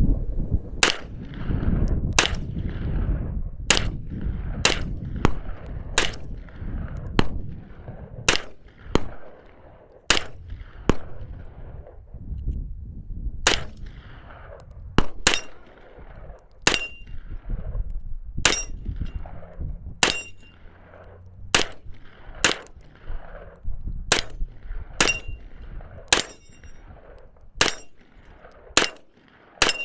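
9mm MP5K PDW semi-auto clone firing a string of about thirty single shots at a steady pace of roughly one a second, some with a short metallic ring after the shot. Wind rumbles on the microphone, heaviest in the first third.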